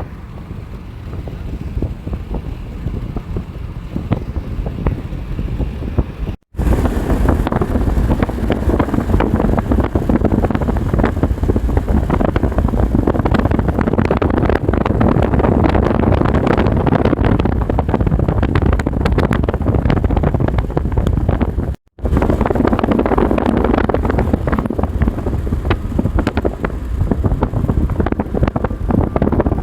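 Strong thunderstorm winds buffeting the microphone in a loud, continuous rush. It is lighter for the first few seconds, then heavier, and cuts out abruptly twice.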